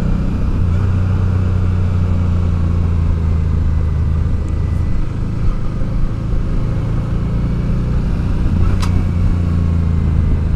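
Motorcycle engine, a Honda Deauville V-twin, running steadily on a descending mountain road, with wind rush. About nine seconds in there is one brief sharp click that the rider hears as a worrying noise, possibly the exhaust scraping the road in a lean.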